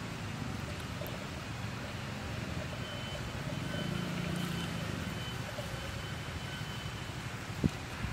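Steady low outdoor rumble that swells briefly about four seconds in, with a faint thin high tone over it and a single sharp click near the end.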